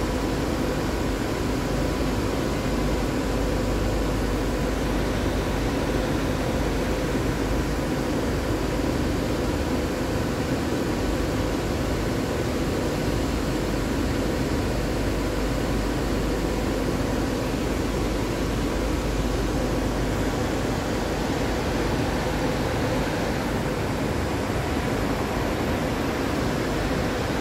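Steady machine-like hum and hiss, holding one level throughout with a faint steady tone in it.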